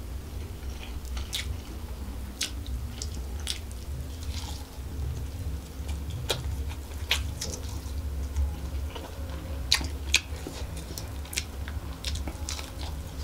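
Close-miked chewing of chicken fried rice, with many short wet mouth clicks and smacks, over a steady low hum. Near the end, a bite into a piece of roast chicken held in the hand.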